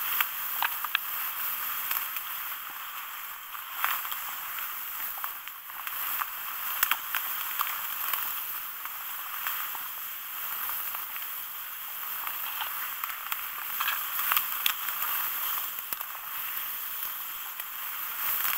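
Dry reed stems rustling and crackling as someone pushes through a dense reed bed on foot, with short sharp snaps scattered throughout and a few louder ones.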